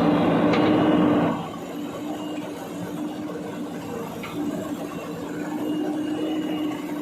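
JCB 3DX Super backhoe loader's diesel engine running under load with a steady drone, louder for about the first second and then settling.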